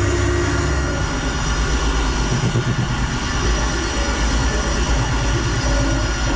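A woodworking power machine running steadily, with a low rumble under a steady hum.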